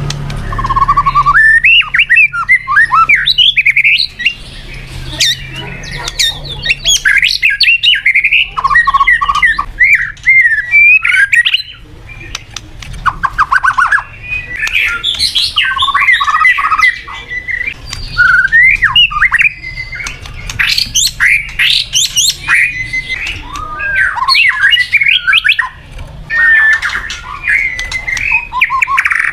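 White-rumped shama singing a long, varied song: quick bursts of whistles, trills and harsh notes, with short pauses between phrases.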